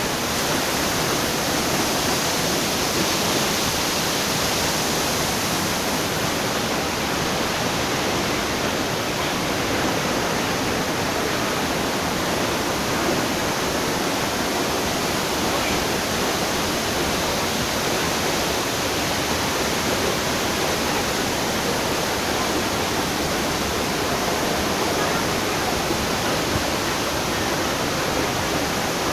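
Waterfall pouring steadily: a loud, unbroken rush of falling water.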